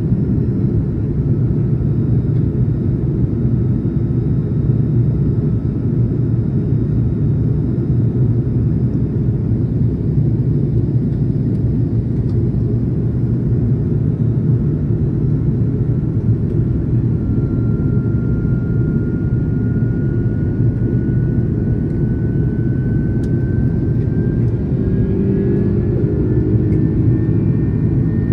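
Steady cabin rumble of an Airbus A330-300 in flight, heard from a window seat beside the wing-mounted engine. In the last third a faint whine slowly rises in pitch.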